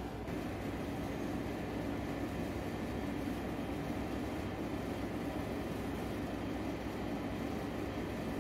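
Steady, even hum of a window air conditioner running.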